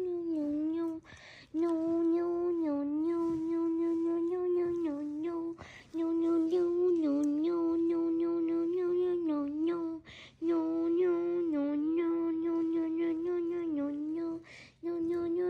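A person humming one held note, with small dips in pitch, breaking off to take a quick breath about every four to five seconds.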